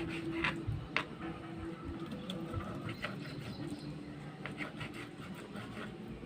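Knife cutting raw chicken into small pieces on a cutting board: irregular knocks and clicks, the sharpest few in the first second.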